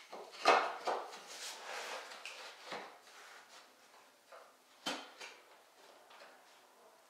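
Pieces of primed MDF base trim knocking and rubbing as they are handled and pressed into place at an outside mitered corner: a sharp knock about half a second in and another just after, then a few lighter knocks and scuffs that grow sparser.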